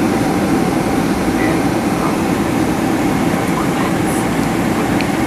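Steady cabin roar inside a Boeing 767-300ER in flight: the jet engines and the rush of air past the fuselage, holding an even level.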